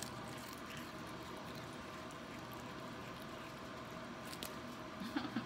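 A black cat chewing and tearing at a red leaf lettuce leaf: soft, faint crunching and tearing over a steady background hum, with a brief low sound just before the end.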